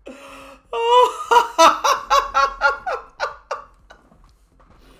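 A person laughing: a quick run of about a dozen rhythmic 'ha' bursts, fading away over about three seconds.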